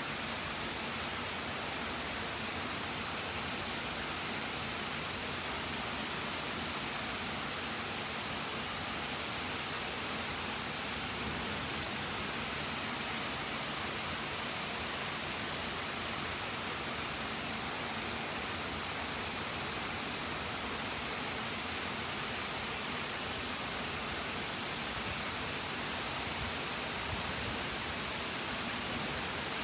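Rain falling steadily on wet pavement, a constant even hiss with no thunder heard.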